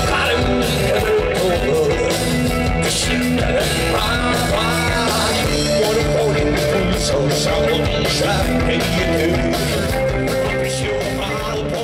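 Rock music with a steady beat, bass line and guitar.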